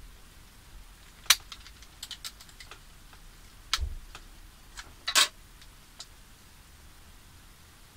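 Irregular clicks and light taps from a tablet being handled and tapped: one sharp click, a quick flurry of small clicks, a click with a dull knock, then a longer click, falling quiet in the last two seconds.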